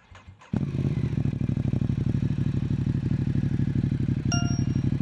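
Motorcycle engine started: the starter cranks briefly and the engine catches about half a second in, then settles into a steady, fast-pulsing idle. A short beep sounds near the end.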